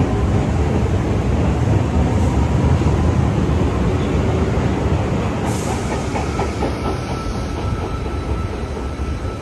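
Osaka Metro Chuo Line train running past along the platform: a heavy rumble of wheels on rail with rhythmic clacking, a short burst of hiss about five and a half seconds in, and the rumble fading toward the end as it draws away.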